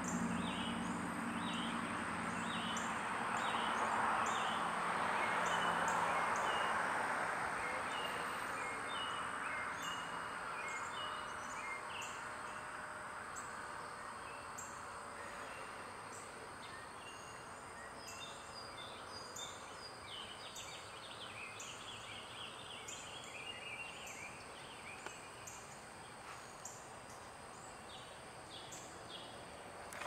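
Faint outdoor ambience of scattered short bird chirps over a steady thin high tone, with a broad hiss that swells about four to six seconds in and fades away over the next several seconds.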